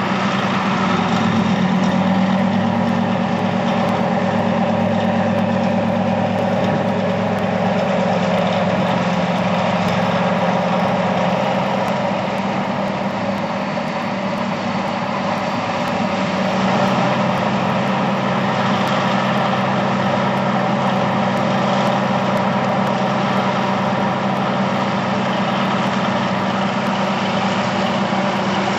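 Simulated diesel engine sound for a model Monighan 10W dragline, running steadily at a low, even note. It swells slightly about two seconds in and again a little past halfway.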